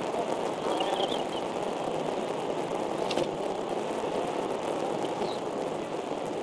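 Steady rushing background noise on the nest microphone, with a few faint, high chirps about a second in and again after five seconds, fitting the begging calls of bald eaglets being fed, and a single faint click near the middle.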